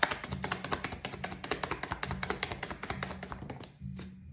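A deck of tarot cards being shuffled by hand: a rapid run of light taps and snaps, about ten a second, that stops shortly before the end.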